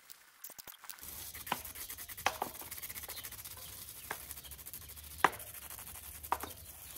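Rubber tyre bead being forced by hand over a mountain bike rim and CushCore foam insert: steady rubbing and scraping, with about half a dozen sharp clicks and snaps as the bead works into place. The loudest snap comes about five seconds in. This is a tight, hard-to-fit tyre.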